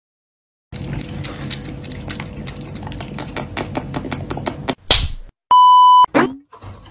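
A rapid run of small clicks over a low hum, then a sudden noisy burst and a loud, steady electronic beep lasting about half a second, like a censor bleep sound effect.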